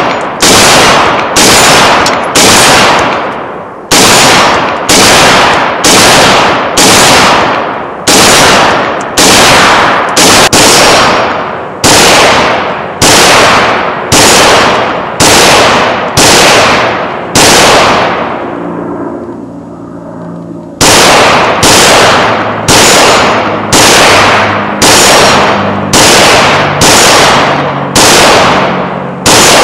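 IMI Tavor TAR-21 bullpup rifle in .223/5.56 NATO firing single shots at a steady pace of about one a second, each shot ringing out behind it. The shooting stops for about three seconds a little past the middle, then resumes at the same pace.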